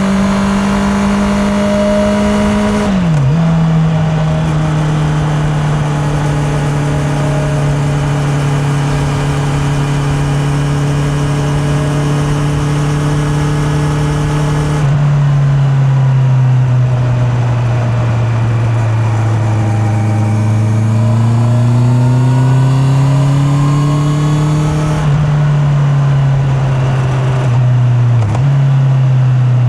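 Honda CB650R's inline-four engine running steadily under way, recorded from the rider's back pocket. The engine note drops sharply at gear changes about three and fifteen seconds in. It sags and climbs again in the last third, with two short dips near the end.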